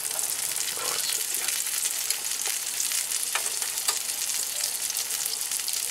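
Fish fillets frying in butter in a cast-iron skillet: a steady sizzle with a few sharp crackles.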